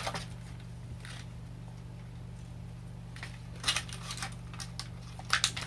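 Scissors snipping at plastic toy packaging: short sharp clicks, a cluster after about three and a half seconds and another near the end, over a steady low hum.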